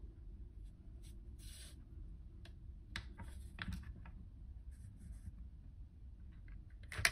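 Faint rustling and scraping of 35 mm film being handled and slid across the open back of a camera, with a few light clicks and a sharper click near the end.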